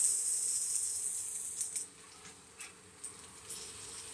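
Egg-and-fish fritters frying in oil in a nonstick pan: a sudden loud sizzle as a fritter is turned over, dying down after about two seconds to a quieter sizzle, with a few light ticks.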